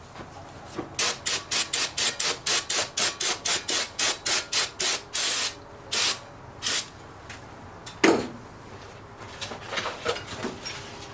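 Rolled-up 80-grit sandpaper rubbed back and forth by hand on a metal wheel lip, about four quick strokes a second for several seconds, then a few slower strokes. A single sharp knock comes near the end.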